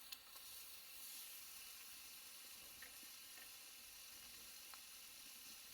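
Faint steady sizzling of meat frying on a hot iron plate, with a few small pops.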